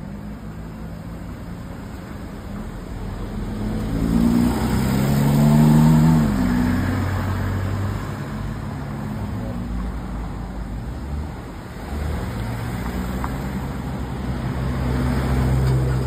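A car driving on a rain-wet road, heard from inside the car: engine and tyre noise, the engine note rising about four seconds in to its loudest, then dropping away. The hum dips briefly and picks up again near the end.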